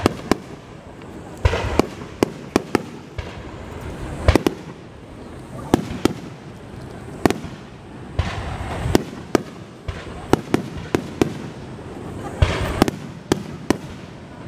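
Aerial fireworks shells bursting in quick succession: a string of sharp booms at irregular intervals, some close together in clusters.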